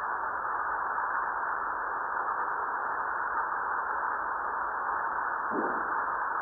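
Seismometer recordings from Fuego volcano played back as sound: a steady hiss of ground noise, with one faint, short lower rumble about five and a half seconds in.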